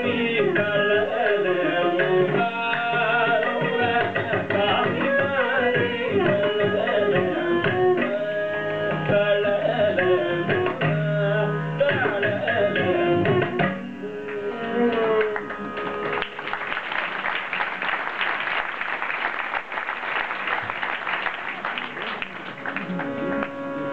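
Carnatic singing with mridangam, ghatam and violin accompaniment, the voice sliding through ornamented phrases over the drumming, coming to a close about fourteen seconds in as the piece ends. Audience applause follows for several seconds.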